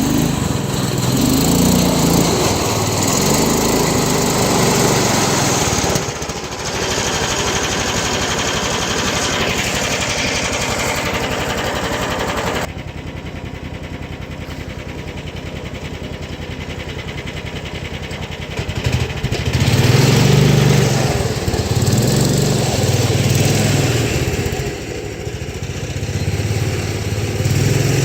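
Small engine running, steady at first, quieter for a stretch in the middle, then louder again near the end.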